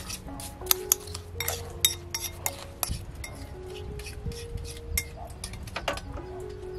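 A spoon stirring a thick sauce in a ceramic bowl, clinking against the bowl's side again and again at an uneven pace.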